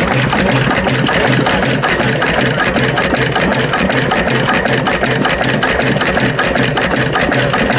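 Vintage stationary diesel engine running steadily, with an even beat of about four a second and a fast, regular clatter from its exposed pushrods and valve gear.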